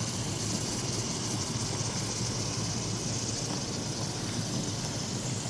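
Steady hiss of a wallpaper steamer boiling and pushing steam through a wooden steam-bending tube.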